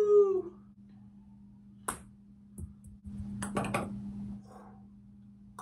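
A held, wailing voice note dies away in the first half second. A ping pong ball then ticks sharply once about two seconds in and rattles in a plastic cup in a quick cluster of clicks about three and a half seconds in. A steady low hum runs underneath.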